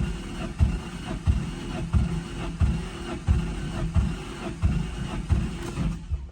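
Nissan 350Z's V6 being turned over on the starter for a compression test: a steady cranking whir with a heavier pulse about every two-thirds of a second, stopping shortly before the end. The test is checking a suspected low-compression cylinder 1.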